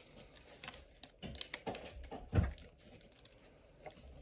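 Tweezers clicking and tapping against a Samsung Galaxy S20 as they pick at the back-glass adhesive. Irregular small clicks with a duller thump about two and a half seconds in.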